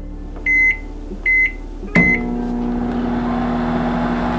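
Countertop microwave oven: three keypad beeps about two-thirds of a second apart as the time is set and it is started. Then the steady hum of the microwave running.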